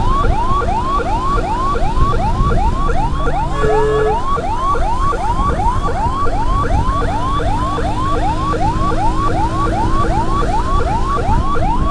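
Electronic siren in a fast yelp, a rising whoop repeated about three times a second, over a steady low rumble. A vehicle horn honks briefly about three and a half seconds in.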